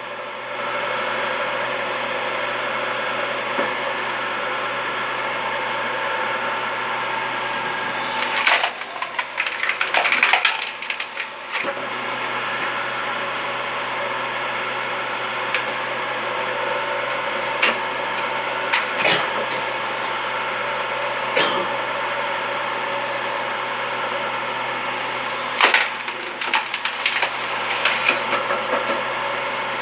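Electric motor of a homemade screw-cone log splitter running with a steady hum while its spinning threaded cone bores into pieces of wood. The wood cracks and splinters in two spells, about 8 seconds in and again about 26 seconds in, with a few single cracks in between.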